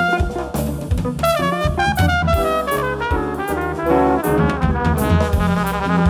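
Live jazz band playing: a trumpet leads a moving melody over drum kit and electric bass guitar.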